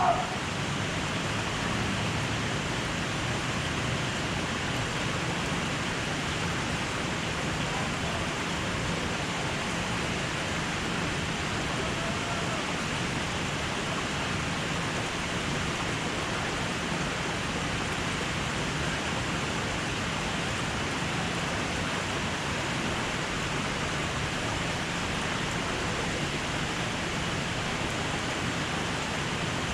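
Steady rush of running and splashing water from a water park's slides and pools, with faint voices now and then. A brief loud rising sound at the very start.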